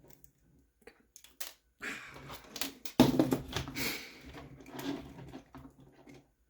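Rustling and light clicking of small parts being handled and shifted about, with a louder clatter about three seconds in.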